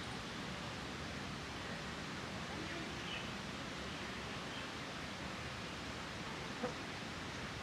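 Steady outdoor background hiss, with one short click about two-thirds of the way through.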